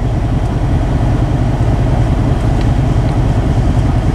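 Steady low rumble of a motor vehicle driving: engine and road noise.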